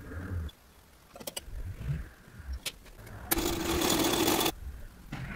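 Restored 1894 Singer sewing machine stitching through cloth in one loud run of a little over a second, starting just past the middle. Before it come a few soft clicks and knocks as the machine is handled.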